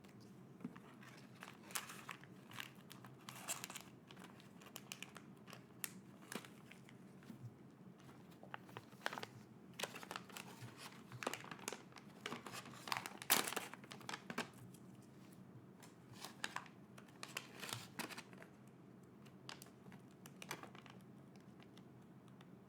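Packaging being crinkled and torn open by hand: irregular rustles and crackles, busiest in the middle.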